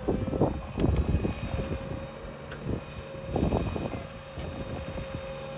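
JCB 3DX backhoe loader's diesel engine running steadily with a faint whine, with low gusts of rumble near the start and again partway through.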